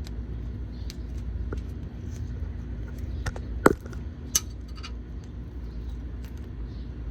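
Scattered sharp metallic clicks and clinks of tools and parts being handled, the loudest a ringing clink about three and a half seconds in, over a steady low rumble and faint hum.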